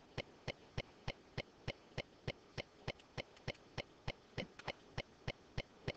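Faint, rapid clicking, evenly spaced at about three clicks a second.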